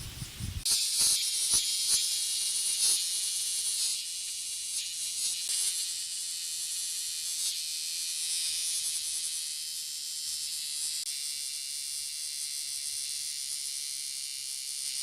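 Male bear cicada (kumazemi, Cryptotympana facialis) buzzing loudly, a dense high-pitched drone that starts suddenly about a second in and then runs on steadily.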